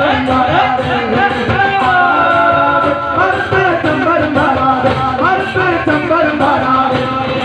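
A live Malayalam folk song: a troupe singing into microphones over fast hand drumming, amplified through the stage speakers, with one long held note about two seconds in.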